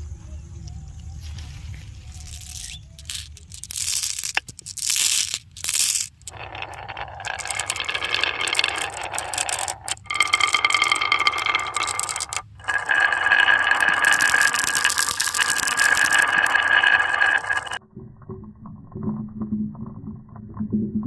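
Marbles rolling and clattering along the tracks of a HABA wooden marble run, with sharp knocks at first and then a long, ringing roll. It cuts off abruptly near the end.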